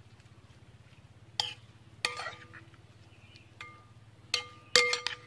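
A metal spoon clinking against the bowl while tossing a salad: several sharp clinks at irregular intervals, each with a short ring, the loudest near the end.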